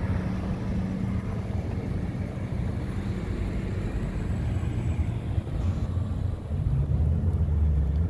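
Low, steady rumble of road traffic: vehicle engines running on the street, growing louder near the end as one passes close.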